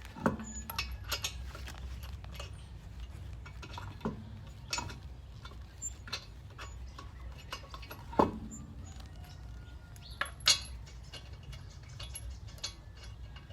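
Scattered metallic clinks and knocks of lug nuts and hand tools against the wheel, a few louder than the rest, over a steady low hum.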